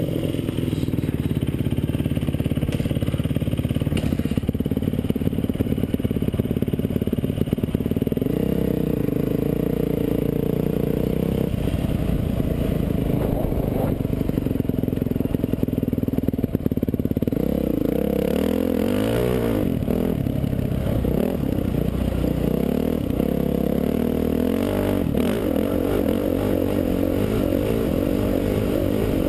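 Dirt bike engine running as the bike is ridden over desert ground. Its pitch rises and falls several times past the middle as the throttle opens and closes.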